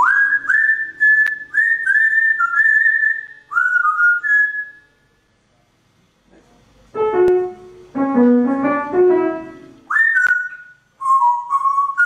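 African grey parrot whistling a tune in short, clear notes that swoop up onto each pitch. The whistling stops about four and a half seconds in. A lower, fuller-toned melodic phrase follows about seven seconds in, and the whistled notes return near the end.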